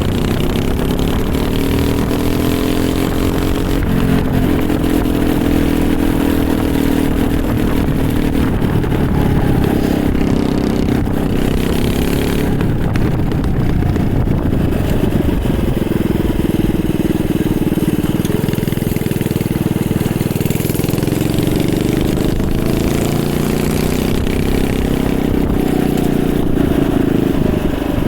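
Small single-cylinder engine, taken from an old pressure washer, driving a home-built mini bike. Its engine speed rises and falls as the bike is ridden.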